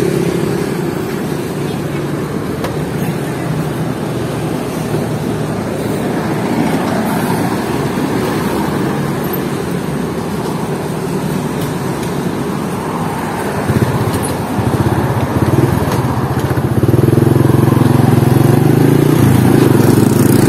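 Motorcycle engine running while riding along a road, with road and traffic noise. About fourteen seconds in the engine note grows louder and then holds steady.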